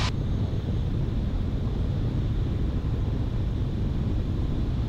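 Steady drone of a Van's RV's Lycoming IO-360 four-cylinder engine and propeller in flight, with air noise over the airframe.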